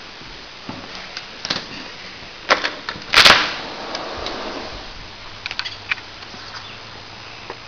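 Sliding glass patio door being handled and opened: scattered clicks and knocks, the loudest a short clatter about three seconds in, then a few lighter clicks.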